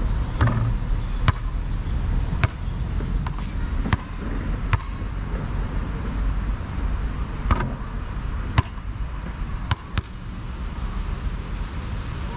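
A basketball bouncing on asphalt and knocking against the backboard and rim, in sharp single knocks at irregular intervals about a second apart. Under it runs a steady high drone of insects.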